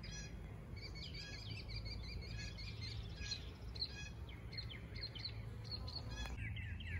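Small birds chirping and calling in quick, repeated short notes, over a faint steady low hum.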